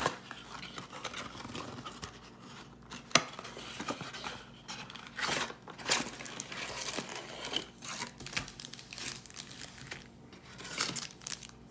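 Trading card box packaging being handled and opened: irregular crinkling and tearing, with sharp crackles now and then.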